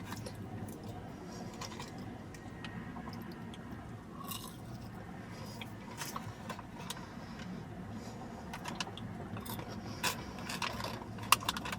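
Faint chewing and eating noises with scattered light clicks and crackles over a low steady hum.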